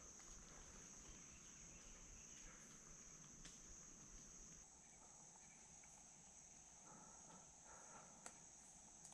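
Faint, steady, high-pitched drone of insects such as crickets, with a few small ticks.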